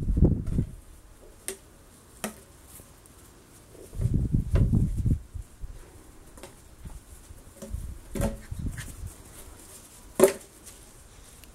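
Empty plastic PET bottle on a rope being knocked about by a Rottweiler puppy: scattered sharp plastic clicks and taps, the loudest a little after ten seconds. Three low rumbling bursts about a second long come at the start, around four seconds and around eight seconds.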